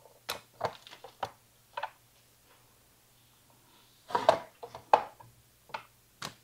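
Irregular taps, clicks and knocks of green bell peppers and utensils being handled at a kitchen counter, by a wooden cutting board and a plastic vegetable chopper, with a louder cluster of knocks about four seconds in.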